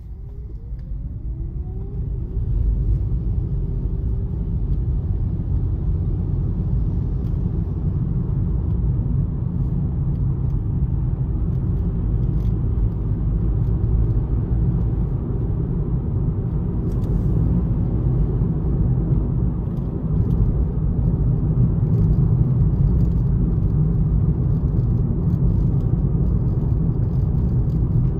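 Car pulling away and accelerating, the engine note rising over the first two seconds, then a steady low rumble of engine and tyre noise while cruising, heard from inside the car.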